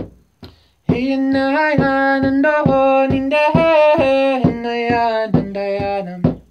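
Large frame drum struck with a padded beater, about two beats a second alternating strong and soft. From about a second in, a man sings long held notes without words over it, stepping down in pitch near the end and stopping just before the end while the drum goes on.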